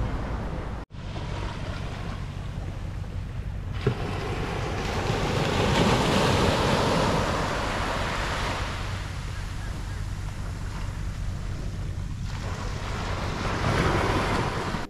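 Sea surf breaking and washing up on a sandy beach, with wind buffeting the microphone. The wash swells and fades, loudest around the middle.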